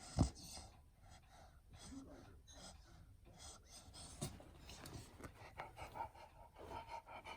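A sharp thump about a quarter second in, another smaller one about four seconds in, and otherwise a beagle's faint breathing and panting.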